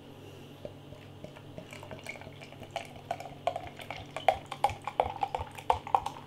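Beer poured from a bottle into a glass: irregular glugging and splashing that grows busier and louder from a couple of seconds in until it stops near the end.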